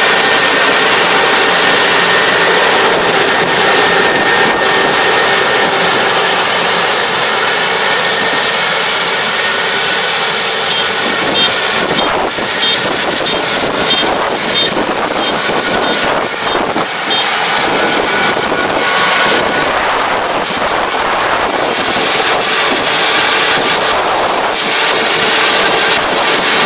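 Kubota DR575 five-row combine harvester running loud and steady as it cuts rice, with a brief run of faint high-pitched beeps a little under halfway through.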